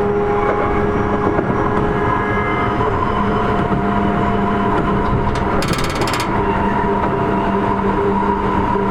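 Sotetsu 8000 series electric train running at speed, heard from inside the car. The wheels rumble on the rails under a steady whine from the Hitachi IGBT-VVVF traction inverter and motors, held at a constant pitch. The whine breaks off for a moment about six seconds in, while a short high buzz sounds.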